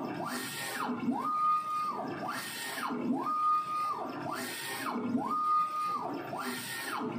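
Print-head carriage of an A3 UV DTF printer with twin TX800 heads sweeping back and forth about once a second as it prints. On each pass its drive motor whines up in pitch, holds steady, then winds down, alternating between a lower and a higher whine, with a hiss along with it.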